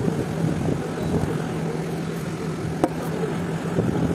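Steady hum of an evaporative air cooler's fan running, with a single sharp click nearly three seconds in.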